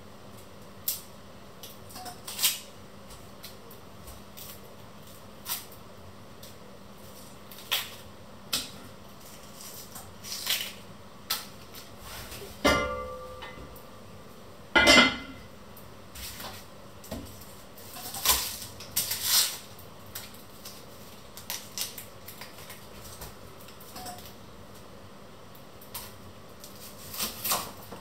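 Onions being peeled with a kitchen knife: scattered light knife taps and clicks on a wooden cutting board and crackles of dry onion skin. About halfway through comes a ringing clank of kitchenware, and two seconds later the loudest sharp knock.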